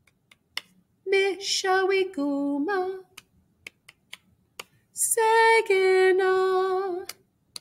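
A woman singing Michigan place names such as "Mishawigumah" unaccompanied, in two short phrases, about a second in and again about five seconds in. Finger snaps keep a steady beat about twice a second between the phrases.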